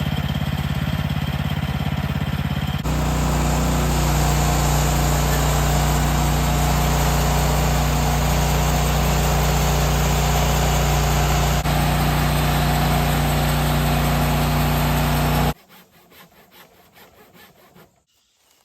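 Portable band sawmill running, its engine steady while the band blade cuts through a hardwood log; the sound gets louder and fuller about three seconds in and stops abruptly about fifteen seconds in, leaving only faint sounds.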